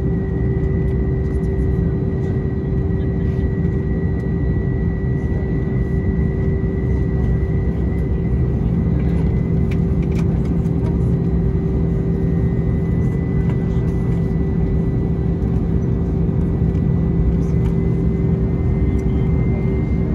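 Airbus A321ceo cabin noise while taxiing to the gate after landing: a steady low rumble from the engines at idle and the rolling airframe, with a constant whine on top.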